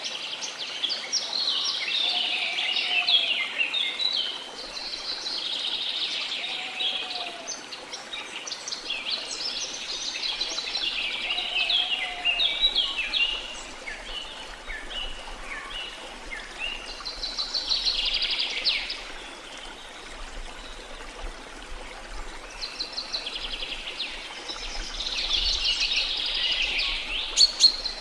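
Small songbirds singing in quick trilling phrases that come every few seconds, over the steady wash of the sea.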